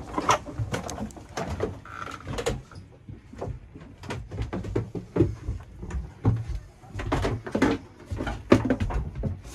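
Footsteps and scattered knocks and bumps as people climb down a yacht's companionway steps into the cabin.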